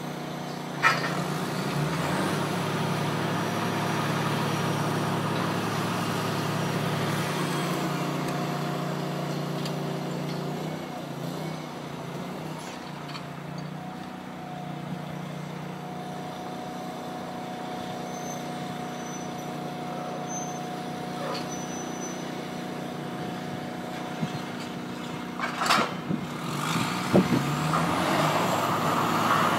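Workover rig's diesel engine running under load. It picks up about a second in and eases back to a lower, steady run around ten seconds in. Short sharp noises come about a second in and again near the end.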